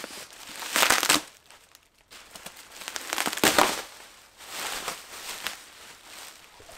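Plastic bubble wrap crinkling and crackling as it is pulled and crumpled off a new motorcycle fairing panel, in several loud bursts about a second or two apart.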